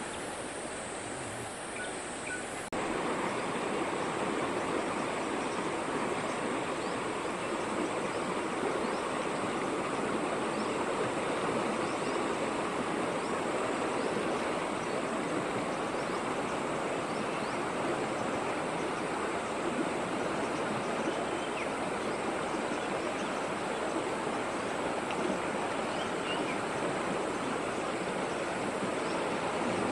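A fast, shallow river rushing steadily over a stony bed. It turns louder about three seconds in; before that the rush is softer, with a faint high steady tone above it.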